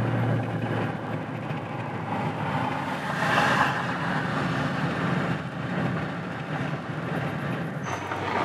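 Car driving along a highway, heard from inside the cabin: a steady engine drone under tyre and road noise, with a louder swell about three and a half seconds in.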